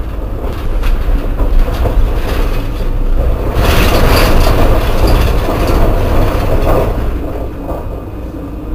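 Alstom Citadis 302 tram running: a steady low rumble, with a louder swell of rumble and hiss from about three and a half to seven seconds in.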